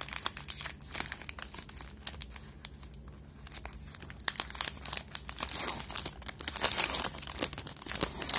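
Foil inner wrapper and outer sleeve of a Dairy Milk Silk chocolate bar being unwrapped by hand, crinkling and tearing in quick sharp crackles. The crackling grows denser and louder about halfway through as the foil is pulled from the sleeve.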